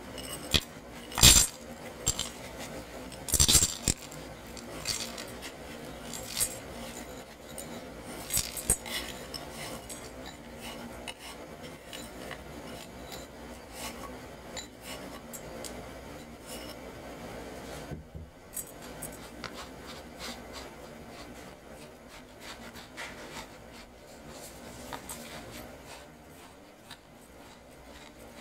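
Biscuit crumbs tipped from a glass bowl into a stainless-steel ring mould, with a few sharp clinks early, the loudest about a second in, and scraping as the bowl is emptied. Later comes quieter rubbing and scraping as a spatula spreads and presses the crumbs into a cheesecake base.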